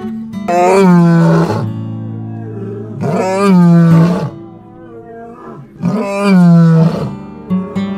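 Male lion roaring: three long, loud roars about two and a half seconds apart, with guitar music playing underneath.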